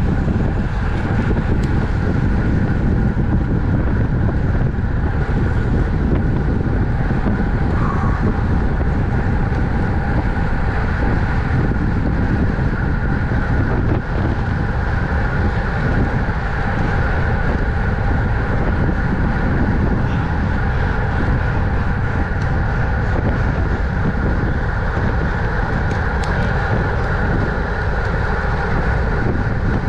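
Steady wind rushing over the microphone of a camera on a racing bicycle at speed, with faint steady tones from the moving bike underneath.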